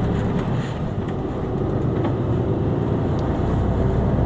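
Mercedes-Benz Actros lorry's diesel engine running steadily, a low rumble heard from inside the cab.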